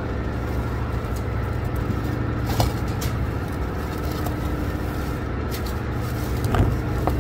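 Steady drone of a tugboat's onboard machinery, low and even, with two brief clicks of handling at the counter about two and a half and six and a half seconds in.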